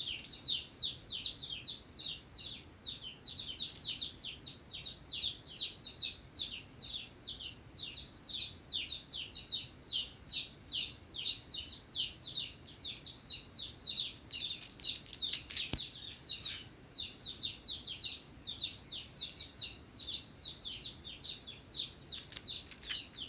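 Bird chirping: an unbroken, fast series of short high notes, each dropping in pitch, about three or four a second, with a couple of brief crackles.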